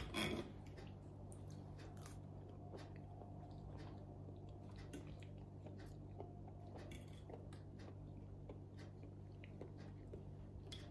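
Soft chewing close to the microphone with scattered light clicks of a knife and fork against a plate, over a steady low hum.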